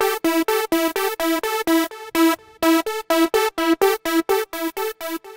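Synthesizer chord loop from GarageBand's Analog Basic software instrument playing back: short, clipped chord stabs repeated at about four a second, with an echo effect on.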